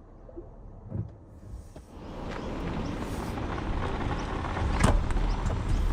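A passing car's road and tyre noise swells up and fades away, with a sharp click about five seconds in.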